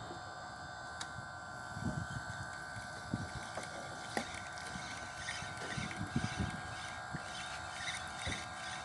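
Steady hum of a boat engine running, with scattered light knocks and low thumps from gear and the wooden boat.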